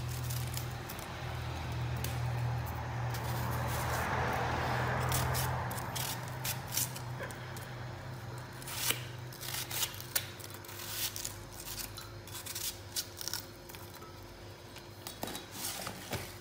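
Knife cutting pieces off a hand-held onion over a glass blender jar: a run of short, crisp cuts and clicks from about six seconds in. A steady low hum runs under the first six seconds and then stops.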